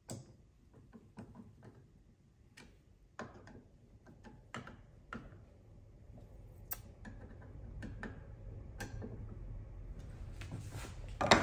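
Light, irregular metal clicks and taps from a plough plane being handled while its fence screws are tightened by hand, with a louder knock just before the end.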